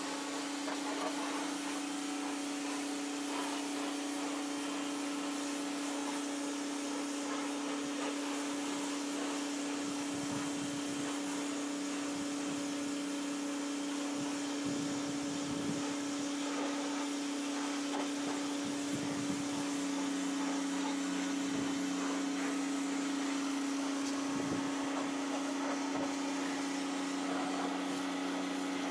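Clean Force 1400 PSI electric pressure washer running steadily and spraying water: an even motor and pump hum under a continuous hiss of spray.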